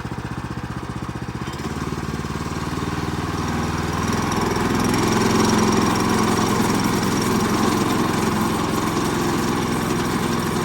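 Small gas engine of a Woodland Mills HM122 bandsaw sawmill running at low speed for its first start, then throttled up over a few seconds to a higher, louder steady speed.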